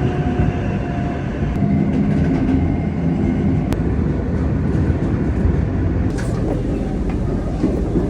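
Subway train running with a steady, loud rumble, a faint steady whine over it and a single sharp click partway through.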